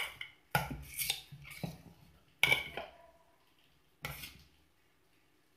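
Metal kitchenware clattering: a non-stick tawa knocked into place on the stove and a ladle clinking against a steel batter pot. There are several sharp knocks and clinks, some with a brief ring, then one more about four seconds in.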